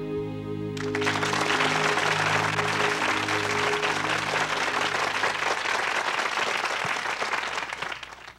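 The last held chord of a gospel song, then audience applause breaking out about a second in over the fading chord and dying away near the end.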